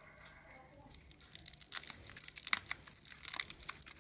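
Clear plastic wrapping film crinkling and tearing as it is pulled off a small loudspeaker by hand, in irregular crackles starting about a second in.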